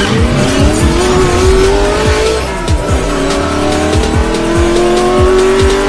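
A racing car engine sound effect revving up in two long rising sweeps, the second starting about three seconds in, laid over electronic hip-hop music with a steady drum beat.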